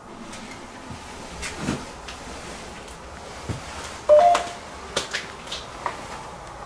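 Warning sound from a Ghost Tube ghost-hunting device: a short electronic beep about four seconds in, with faint clicks and knocks around it.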